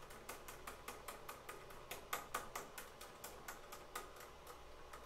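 Faint, quick run of small clicks, about five a second and uneven, from hands working the 3D-printed plastic chopper assembly of a model Thunderbolt siren as it is swapped to another port ratio.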